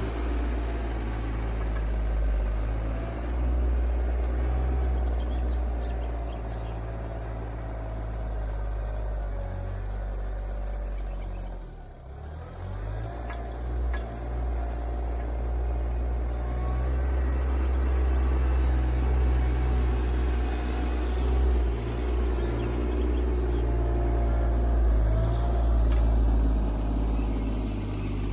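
Kioti RK24 compact tractor's diesel engine running steadily while it pushes mulch. Its note dips briefly near the middle, then picks up again.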